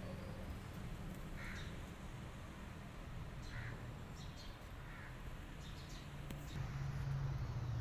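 Calico cat hissing in three short bursts a second or two apart: a warning hiss at a rival cat.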